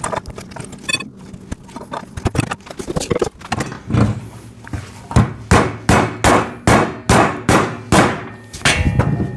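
Rubber mallet knocking the claw feet into the legs of a steel welding table: scattered knocks and rattles at first, then from about four seconds in a steady run of about ten blows, two to three a second.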